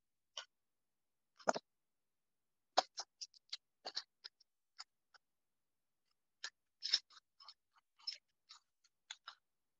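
Small plastic makeup cases and tools being handled, giving a string of short, irregular clicks and taps in little clusters with silences between.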